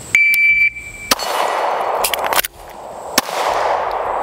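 Shot timer beeps a steady high tone, then a Sig P320 pistol fires one shot with an echoing tail. A few quick metallic clicks of the magazine reload follow, and a second shot comes about three seconds after the beep.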